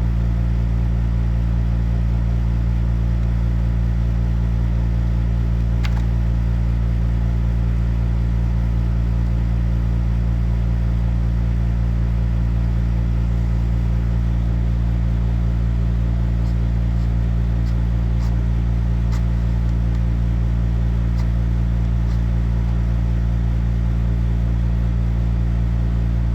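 A steady low mechanical hum holding one pitch, with a few faint clicks now and then.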